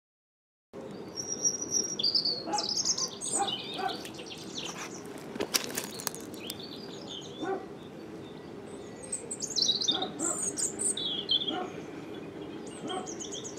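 Garden birds singing, with many quick chirps and whistled phrases, starting about a second in over a steady low background noise with scattered clicks.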